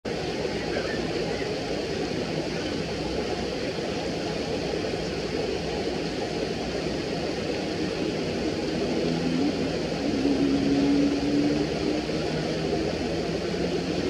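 Steady rush of shallow river water. From about two-thirds of the way through, a distant engine drone comes in, its pitch rising slightly.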